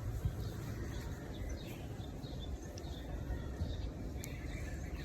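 Outdoor background noise: a steady low rumble with faint, short bird chirps scattered through it.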